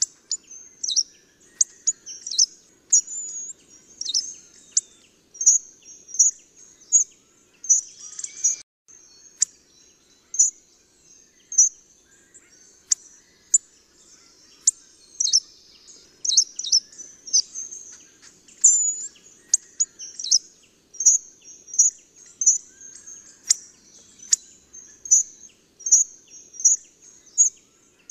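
Hawfinch calling: short, sharp, high-pitched calls repeated irregularly about once or twice a second, with a few denser bursts of calls.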